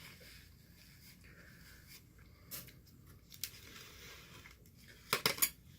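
A person eating noodles: soft mouth and chewing sounds, with a couple of isolated clicks and a quick run of louder clicks near the end.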